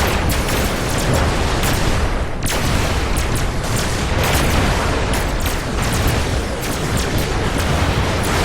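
Sci-fi laser battle sound effect: rapid, overlapping blaster shots fired continuously over a constant low rumble of explosions.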